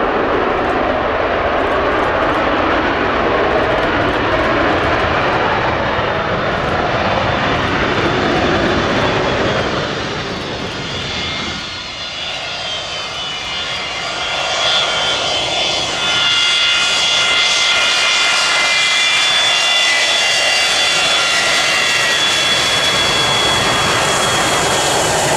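Boeing 727's three Pratt & Whitney JT8D turbofans at takeoff power on the takeoff roll: a loud, steady jet rumble, joined about halfway through by a high engine whine that stays to the end as the jet rolls nearer.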